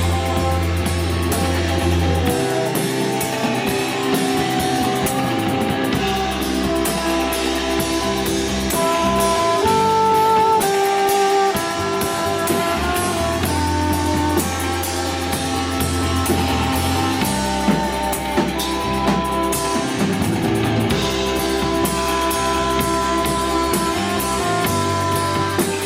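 Live rock band playing without vocals: guitar over held bass notes and a drum kit with steady cymbals.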